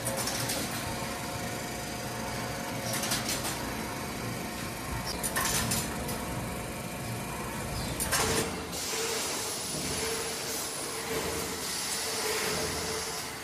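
Metalworking machinery running with a steady hissing clatter, broken by several sharp metallic knocks; a steady hum joins in about nine seconds in.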